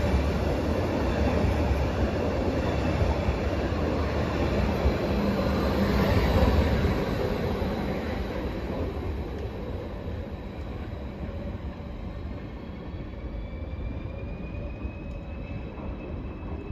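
Class 429 Stadler FLIRT 3 electric multiple unit running past close by, its wheels rumbling on the rails, then fading steadily from about seven seconds in as it draws away. A thin whine rises slowly in pitch in the later part.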